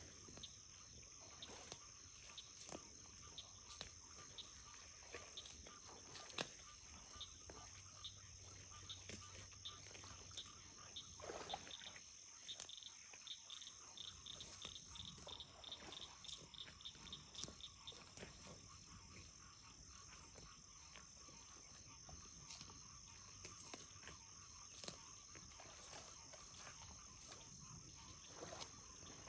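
Faint wetland chorus of insects and frogs: a steady high-pitched insect drone and a steady lower trill, joined in the middle by a rapid run of pulsed calls, about four a second, lasting some six seconds. Scattered soft clicks and rustles come through it.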